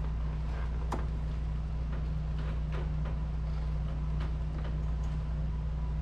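Flat-blade screwdriver clicking and scraping against an old axle seal in an ATV's front differential housing as it is pried at from different angles: a few faint, irregular ticks over a steady low hum.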